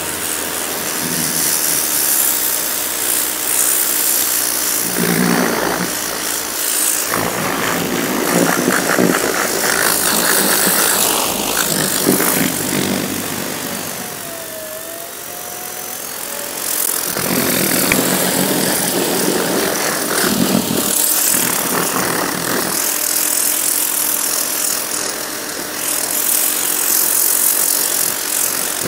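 EGO HPW2000E cordless pressure washer spraying through its turbo nozzle onto a metal mower deck: a steady hiss and spatter of the jet over the hum of the pump. It eases off for a few seconds midway, then comes back at full strength.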